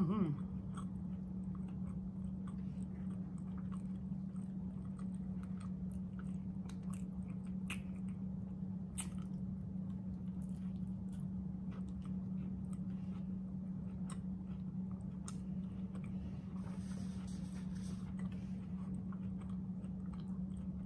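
A person chewing and biting into a soft flour-tortilla brisket burrito close to the microphone, with small wet mouth clicks, over a steady low hum.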